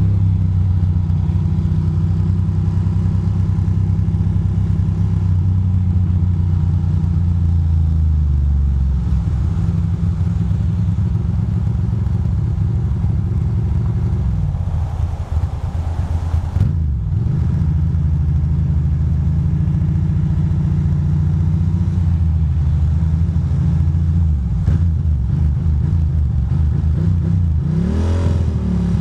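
Ducati Monster 620's air-cooled two-valve L-twin engine running under way, heard from the rider's seat. Its note drops about a third of the way in, wavers briefly around the middle, and rises as the bike speeds up near the end.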